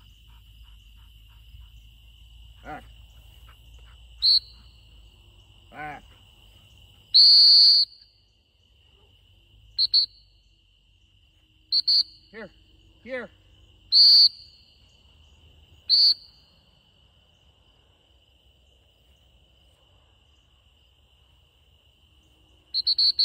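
Dog-training whistle blown in sharp, high blasts: handling signals to a retriever running a blind retrieve. There are single blasts every two seconds or so, with one longer blast about seven seconds in and a quick run of toots near the end. Underneath runs a steady, high insect trill.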